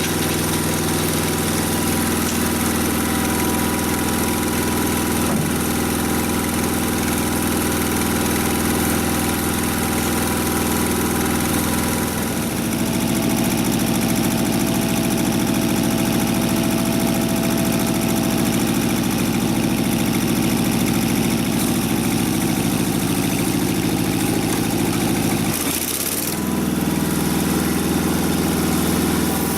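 Engine of a Mobile Dimension portable sawmill running steadily; its note changes about twelve seconds in and dips briefly near the end.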